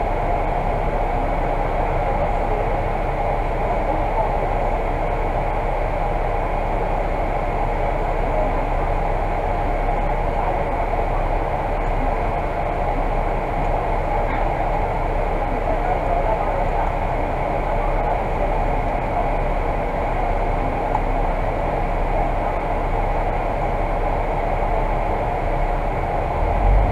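Volvo Super Olympian double-decker bus idling at a standstill, a steady hum heard from inside the upper deck. Near the end the low engine rumble swells as the bus starts to pull away.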